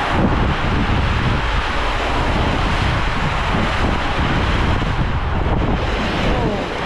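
Water rushing and splashing around a rider sliding down a tube water slide, a steady rush of noise that carries through into the runout lane near the end.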